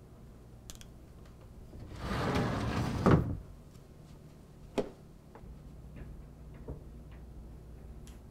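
Sliding closet door rolled shut for about a second, ending in a knock, followed by a sharp click and a few fainter clicks.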